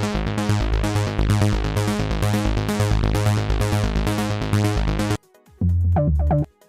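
Toxic III software synthesizer playing a preset: a dense electronic pattern of fast repeating notes over a pulsing bass, cutting off suddenly about five seconds in, then a short low phrase of a few notes.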